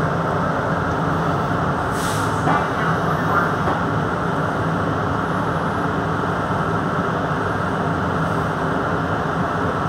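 Steady low noise of an R62A subway car heard from inside the car at its rear, with a short hiss of air about two seconds in.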